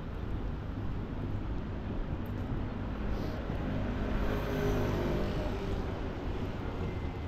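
City street noise with a motor vehicle passing close by, its engine loudest about four to five seconds in, over a steady low rumble.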